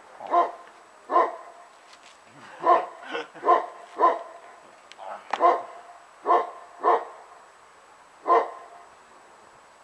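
A large dog barking, about nine single barks spaced roughly a second apart, with a pause around the middle. The barks stop near the end.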